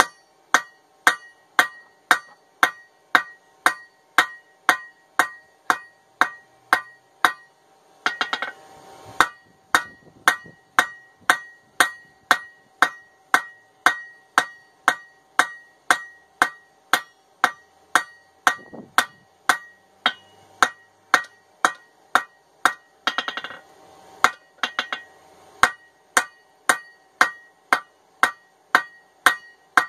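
Blacksmith's hammer strikes on hot steel against an anvil, about two blows a second, each with a bright ringing note from the anvil: the steel is being drawn out with a straight peen hammer. The blows pause briefly about eight seconds in and again around twenty-three seconds in.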